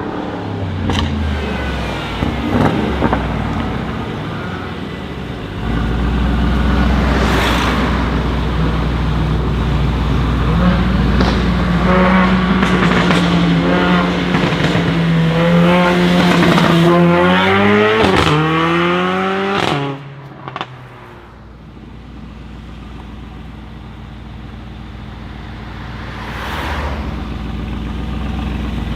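Mercedes-AMG G63's twin-turbo V8 through an Akrapovic exhaust, loud and accelerating, its pitch climbing for a few seconds, with sharp crackles as it comes off the throttle. About twenty seconds in it drops suddenly to a quieter steady engine note, which swells again near the end.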